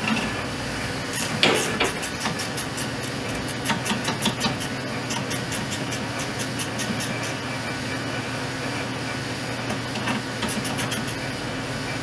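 A wrench ratcheting on a drive-belt adjustment bolt, giving runs of quick, even metallic clicks about two seconds in and again near the end, over a steady hum.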